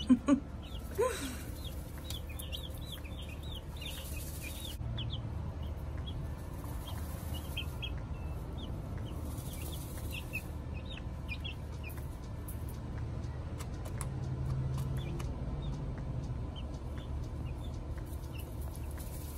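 Young chicks peeping in short, scattered chirps while they dust-bathe in sand, with brief rustles of the sand now and then and a steady low hum underneath.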